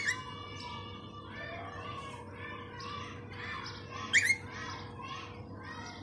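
Rose-ringed parakeet calling in a steady run of short rising-and-falling notes, about two a second, with two loud sharp squawks, one at the start and one about four seconds in.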